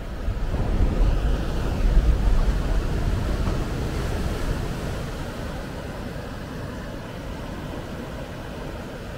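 Ocean surf: small waves breaking and washing up a sandy beach in a continuous rush. The surf builds over the first couple of seconds, with a deep rumble at its loudest, then slowly eases off.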